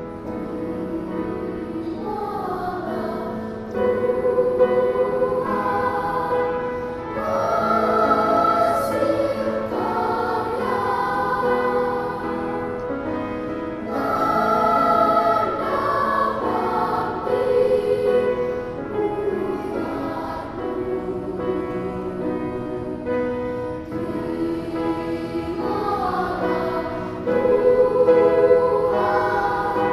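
Primary-school children's choir singing together, the massed voices getting louder in several phrases.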